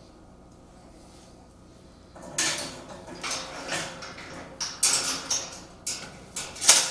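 Steel mesh gate and frame of a hitch-mounted cargo carrier clanking and rattling as the gate is worked onto the frame, starting about two seconds in, with several sharper metal knocks, the loudest near the end.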